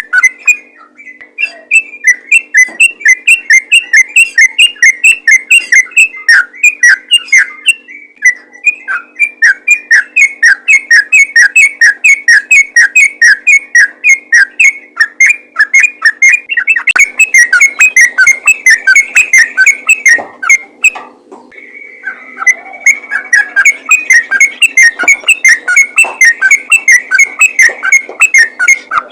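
Yellow-vented bulbul (trucukan) singing a fast, unbroken run of loud, clear chirping notes, about five a second, with a few short pauses. It is a lively bulbul call used to draw other bulbuls of its kind.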